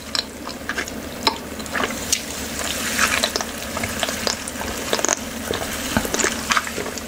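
Drinking from a large foam cup tipped up to the mouth: liquid sloshing in the cup, with scattered small clicks.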